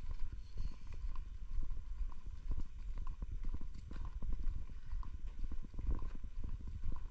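Walking footsteps and small knocks of a hand-carried action camera, an uneven run of thuds, over a low wind rumble on the camera's microphone.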